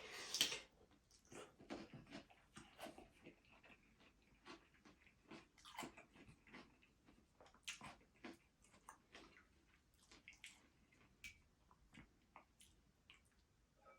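Quiet mouth sounds of eating: irregular soft wet smacks and chewing clicks, several a second, with a louder bite right at the start.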